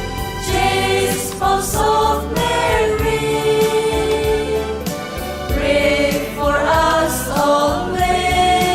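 A choir singing a Christian hymn with rhythmic instrumental accompaniment.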